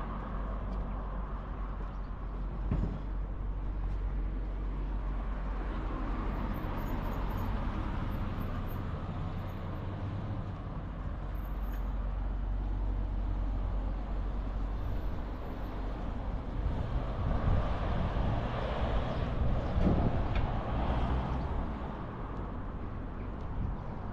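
Road traffic: cars driving past with engine and tyre noise over a steady low rumble. It grows louder as a vehicle passes about three quarters of the way through, with a brief thump near the loudest point.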